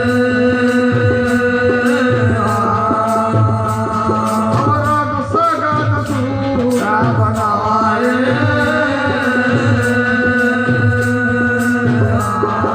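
Hindi devotional bhajan music: a held drone with a melody over it and a steady percussion beat, between sung lines.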